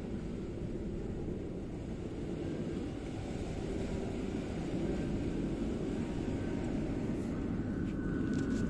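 Steady low outdoor rumble that grows slowly louder, with a few faint clicks near the end.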